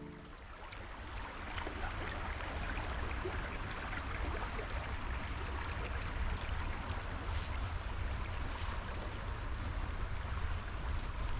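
Creek water running steadily, with a low rumble of wind on the microphone.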